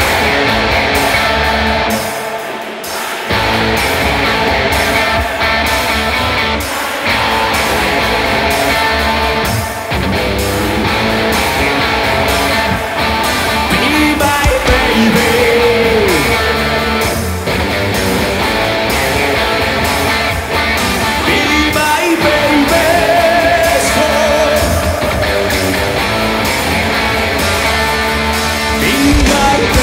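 Live rock band playing at full volume, electric guitar prominent over the drums, with a few bending guitar notes about halfway through.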